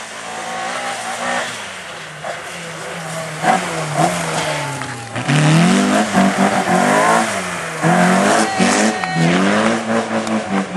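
Opel Kadett rally car's engine revving hard, its pitch climbing and then dropping abruptly over and over as it shifts gear and lifts, while the car slides past on gravel. Loudest from about halfway in.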